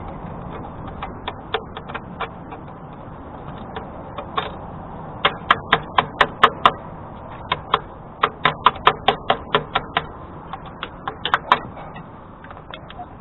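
A screwdriver turning the worm screw of a hose clamp on a car's exhaust pipe, making sharp metallic clicks in runs of about four a second with short pauses, loudest in the middle, as the clamp is tightened down over a muffler patch.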